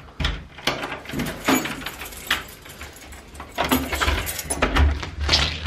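A bunch of keys jangling and clicking against a door lock as the door is unlocked, with irregular rattles and knocks of the lock and handle.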